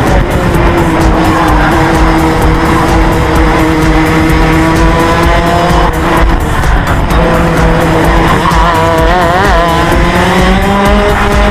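Racing kart engine heard onboard, running at high revs, dipping briefly about halfway through and then climbing in pitch near the end, over a low rumble of wind on the microphone.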